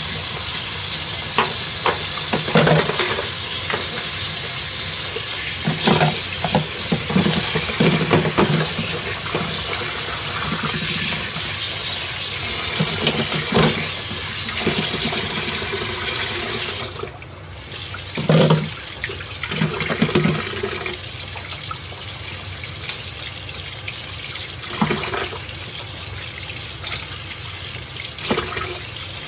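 Kitchen tap running into a stainless-steel sink as raw chicken wings are rinsed by hand, with scattered knocks and splashes from handling the wings and plastic bowls. The flow cuts out briefly just past halfway, then runs on a little softer.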